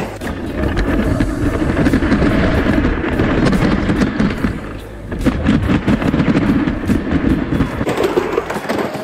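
Homemade wooden backyard roller coaster car running along its wooden track: a loud, continuous rattling rumble packed with rapid clicks and knocks, easing briefly about halfway through.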